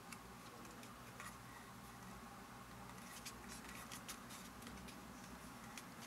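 Faint clicks and light taps of a small plastic device being handled and turned over in the hand, thickest from about halfway through, over a low steady room hum.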